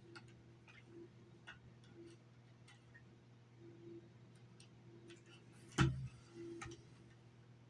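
Small scattered clicks and light scratching of fingers picking dried adhesive off a plastic headset ear cup, with one louder knock about six seconds in. A steady low hum runs underneath.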